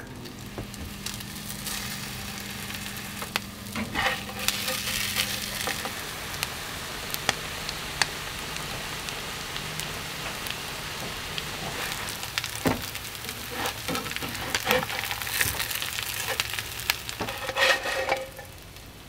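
Crumbed fish cakes sizzling as they shallow-fry in a frying pan, a steady crackling hiss. A spatula clicks and scrapes against the pan now and then, busiest near the end.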